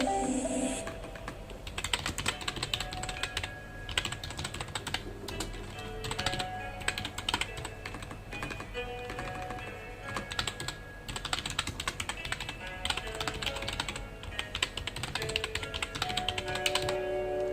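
Typing on a computer keyboard: runs of rapid key clicks broken by short pauses, over soft background music that swells near the end.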